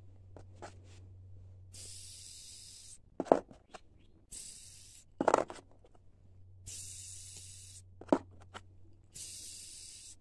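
Small ceramic skate bearings, lubricated with graphite powder, spun one after another between the fingers: four spins of about a second each, each a high hissing whir, with a sharp click between them as a bearing is set down on the cardboard or picked up.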